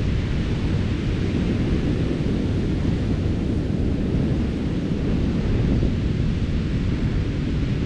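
Wind blowing across the microphone: a steady, low rumbling rush of wind.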